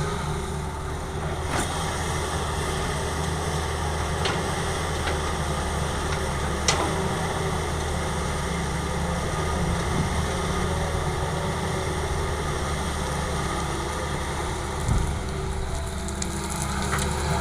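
Diesel engines of an excavator and dump truck running steadily, with a few sharp knocks now and then.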